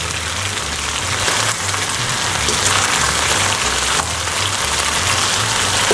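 Chicken pieces sizzling steadily in hot oil in a wok as they sear, with a couple of clicks of metal tongs turning them. Background music with a low bass line plays underneath.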